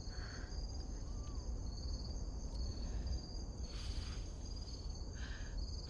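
Crickets chirping: short high trills repeating every half second or so over a steady high trill and a low background rumble.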